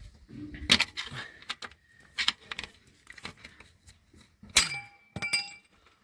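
Metal tools and engine parts clinking and knocking as they are handled, a few separate strikes; the two near the end ring briefly like struck steel.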